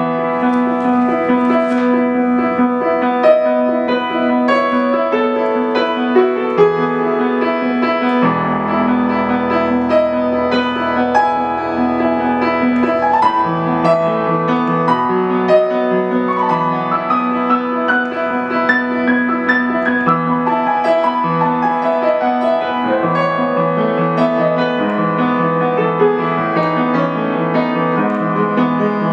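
Solo piano music: a flowing melody of ringing notes over sustained low notes, playing without a break.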